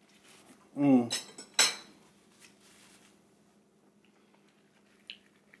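A short wordless hum from a man tasting, followed by a couple of sharp clinks of tableware, then quiet room tone with faint small handling sounds.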